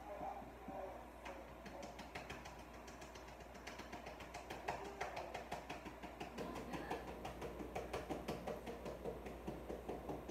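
A utensil beating in a mixing bowl: a fast run of light clicks that picks up after a few seconds to about four or five a second.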